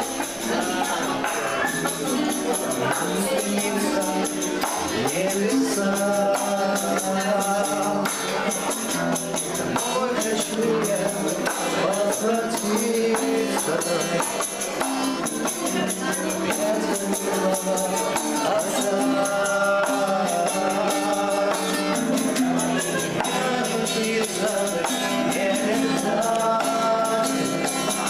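Music: a song with a wavering melody line over a steady accompaniment and busy, rapid high percussion throughout.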